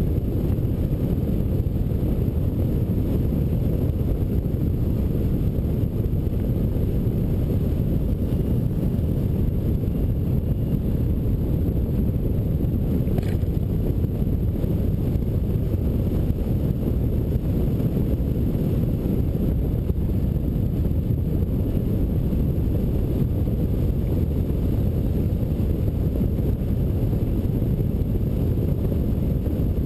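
Steady low rush of airflow over a hang glider in flight, buffeting the camera microphone mounted on the glider.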